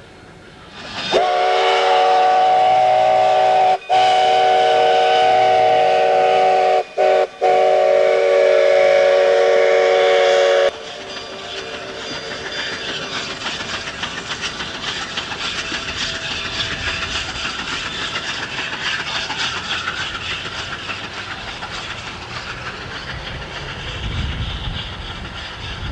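K-36 2-8-2 narrow-gauge steam locomotive no. 484 sounding its steam whistle, several tones together, in a long, long, short, long pattern: the grade-crossing signal. It lasts about ten seconds, then gives way to the locomotive's exhaust chuffing steadily as it works away.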